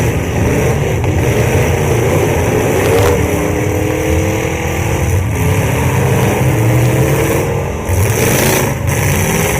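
Engines of full-size demolition derby cars running loudly and revving, their pitch rising and falling.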